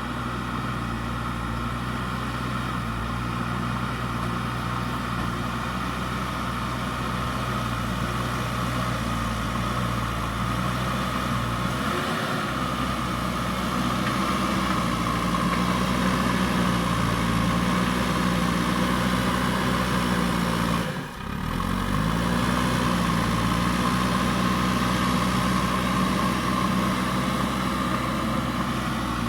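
A JCB backhoe loader's diesel engine runs steadily. Its pitch shifts about twelve seconds in as the load changes, and the sound drops out for a moment about two-thirds of the way through.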